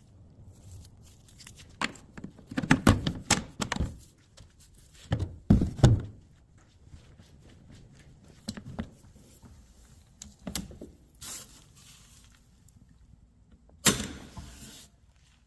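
Irregular knocks and thuds in clusters, with quiet gaps between them and a last loud burst near the end.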